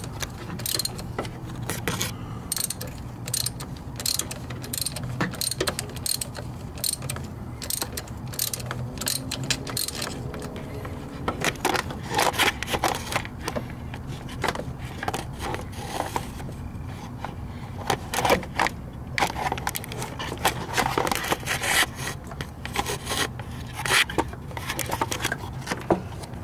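Ratchet wrench clicking in quick, irregular runs, with some metal scraping, while turning a spark plug in a Ford 5.4 V8. A steady low hum runs underneath.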